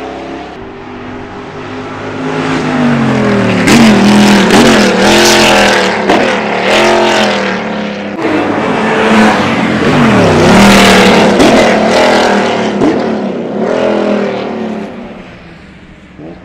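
De Tomaso Pantera's Ford 351 Cleveland V8 race engine accelerating hard, its pitch climbing and then dropping back at each upshift through several gears. It is loudest in the middle and fades away over the last couple of seconds.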